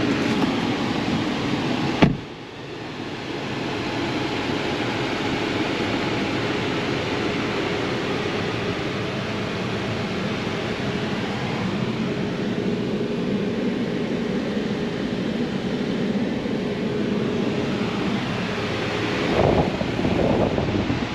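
A car running steadily, an even rush of engine and road noise with a low hum. About two seconds in there is a sharp click, after which the sound drops away and builds back, and it swells again near the end.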